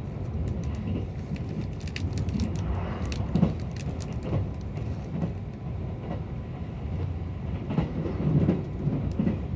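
Running noise heard from inside a limited express electric train car: a steady low rumble of the wheels on the rails, with a run of sharp clicks about two to four seconds in.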